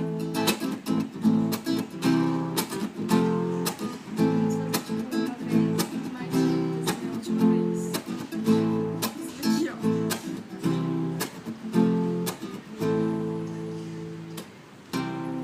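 Acoustic guitar strummed rhythmically in an instrumental break between sung verses, the chords struck several times a second.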